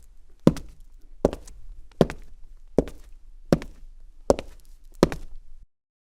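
Boots walking on cement at a steady pace, one step about every three-quarters of a second, each step a quick heel-then-toe double strike. The steps stop abruptly near the end, cutting to silence.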